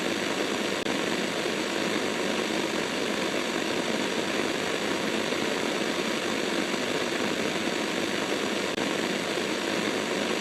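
Steady hiss of broadcast static, even and unchanging with almost no low end, broken by two momentary dropouts, about a second in and near the end.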